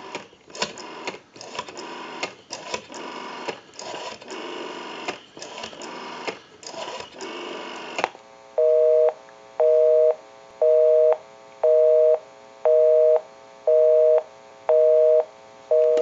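ITT 500 rotary desk telephone being dialled, its dial clicking rapidly for about eight seconds. Then the line gives a busy signal: a two-tone beep about once a second, eight times, because the number called is busy.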